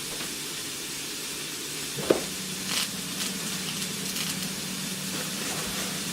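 Sausages sizzling in a frying pan: a steady hiss with scattered crackles and spits. A sharp knock comes about two seconds in, and a low steady hum starts right after it.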